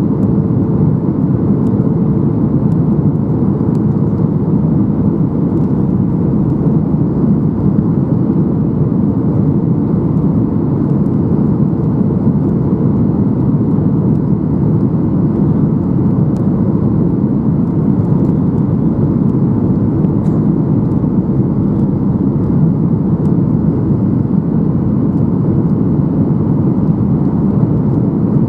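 Steady cabin noise of a Boeing 737-800 in flight: the even roar of its CFM56-7B engines and the airflow over the fuselage, heard from a window seat.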